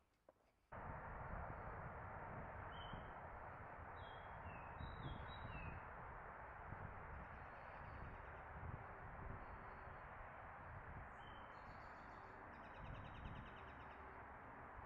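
Songbirds chirping in a park: a run of short falling chirps, a lone chirp later, then a higher buzzy trill near the end. Under them is a steady low background hiss that starts abruptly just under a second in.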